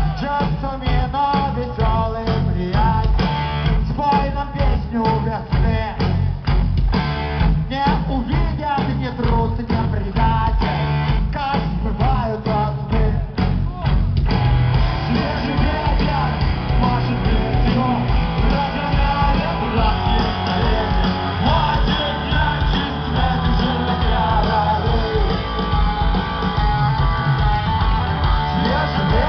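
Rock band playing live, led by guitar, with singing. The first half is a choppy, evenly pulsing rhythm; about halfway through the full band comes in with a denser sound.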